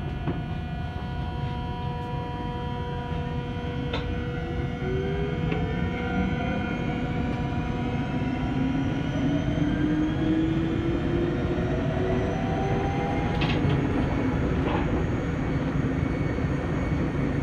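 Electric train accelerating, its traction motors giving several whining tones that climb slowly in pitch, over a steady rumble of wheels on rails, heard from inside the passenger car. A few sharp clicks from the running gear come through, two of them near the end.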